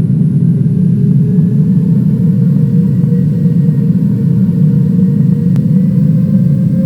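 Loud, steady jet airliner engine and airflow noise heard inside the cabin, with a faint engine tone slowly rising in pitch.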